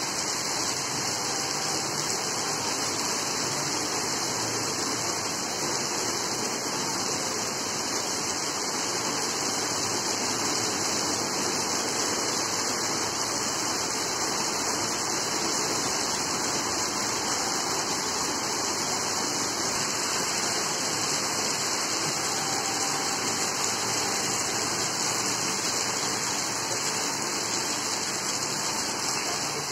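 Heavy rain falling steadily, an even hiss of downpour on wet paving with no breaks or distinct events.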